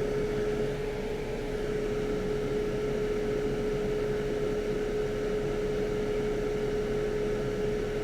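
Steady whir of a fan on the electronics repair bench, with one constant hum-like tone under the airflow noise.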